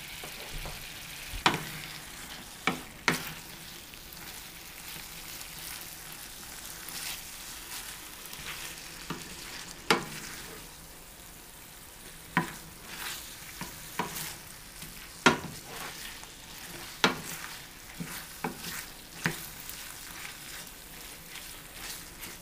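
Wooden spoon stirring spinach, artichokes and cubed cream cheese in a hot stainless steel skillet, with irregular sharp knocks of the spoon against the pan over a steady low sizzle as the cream cheese melts into the mix.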